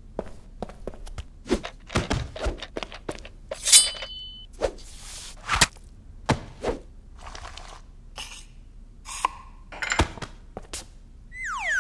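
Animation sound effects: a quick run of thuds and whacks, with a crash and a bright ringing about four seconds in. Near the end comes a falling, whistle-like glide.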